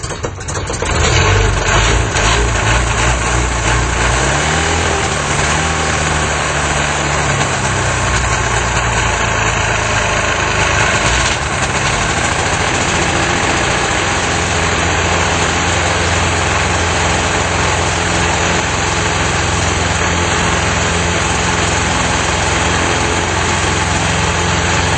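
Light aircraft engine starting as its propeller is swung by hand, then running loudly; its speed wavers for the first ten seconds or so before settling to a steady run.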